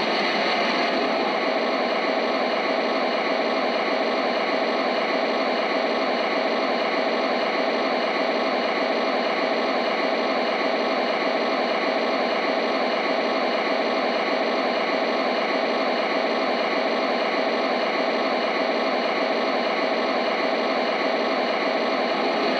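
Steady diesel idle from an O scale Amtrak F59PHI model locomotive's sound system, played through its small speaker with a narrow, tinny range and an even, unchanging level.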